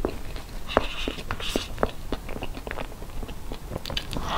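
Close-miked wet chewing and lip-smacking on a mouthful of soft cream cake: an uneven patter of small, sharp mouth clicks, with a couple of brief scrapes of a metal spoon through the cake and a breathy slurp near the end as the next spoonful goes in.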